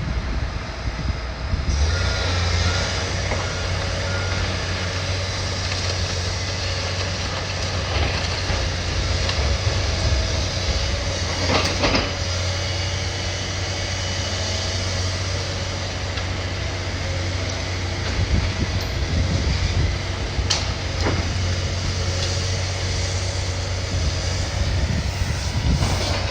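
An engine running steadily with a constant low hum, with a few sharp knocks, one near the middle and one about three quarters of the way through.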